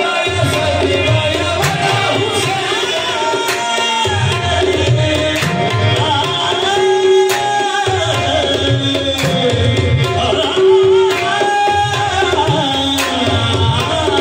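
Qawwali music: harmoniums and tabla playing a steady rhythm under a male lead singer's sung, drawn-out melodic lines.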